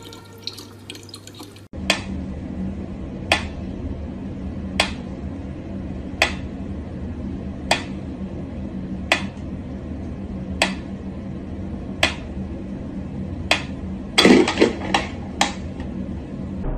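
Mechanical pendulum metronome ticking slowly, one sharp tick about every second and a half, over a low steady hum. The ticks begin about two seconds in, after a brief stretch of tap water running. Near the end there is a short, louder clatter and a few quicker clicks.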